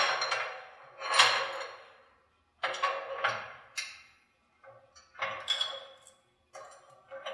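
Steel parts being handled on a press table: a differential drive pinion and bearing splitter knock and clink against steel V-blocks. There are about seven separate metallic knocks, each with a short ring.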